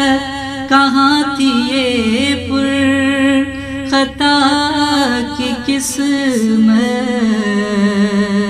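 A man singing an Urdu naat, drawing out long ornamented notes whose pitch wavers and bends, with the held note stepping lower about six seconds in.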